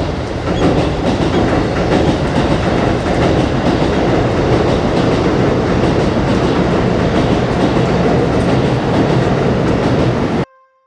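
Overhead train passing directly above the ceiling: a loud, jarring rumble of train noise. It starts suddenly and cuts off abruptly about ten and a half seconds in.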